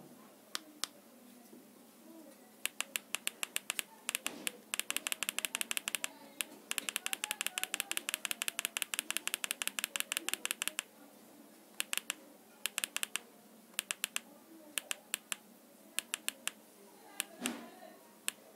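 Sharp clicks from scrolling through an IPTV channel list on an Android TV box with its remote. A few single clicks, then fast runs of about ten clicks a second through the middle, then scattered single clicks again.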